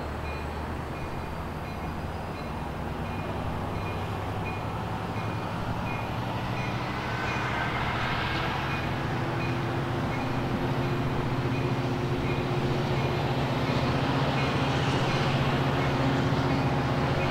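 Diesel locomotive of a Coaster commuter train approaching slowly, its engine hum growing steadily louder as it nears. A grade-crossing bell dings rapidly alongside.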